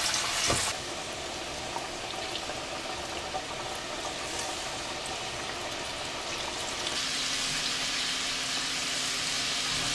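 Battered fish deep frying in a pot of hot peanut oil: a steady dense sizzle. It drops lower about a second in and grows louder again near the end, where a faint low steady hum joins it.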